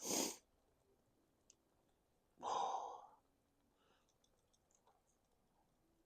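A man breathing out hard twice, a short breath at the start and a longer sigh-like exhale about two and a half seconds in, with faint light clicks of handling in between.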